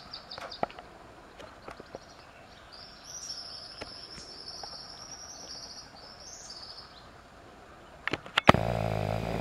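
Riverside wildlife calls: a quick run of high chirps at the start, then a high, buzzy trill of rapidly repeated notes for a few seconds, with scattered small clicks. Near the end a few sharp knocks are followed by a sudden loud, low droning hum.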